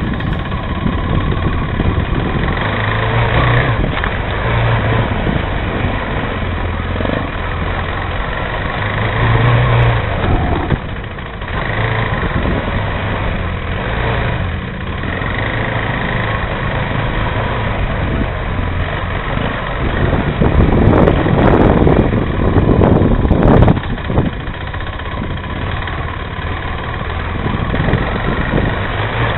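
Motorcycle engine running, its revs rising and falling, loudest about two thirds of the way in.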